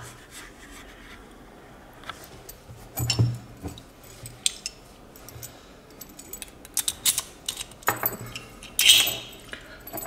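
A ring of keys jangling and handled, then a key worked into a Viro Panzer 4117 shutter padlock and turned. A run of sharp metallic clicks and clacks comes near the end as the padlock's sliding shackle is drawn open.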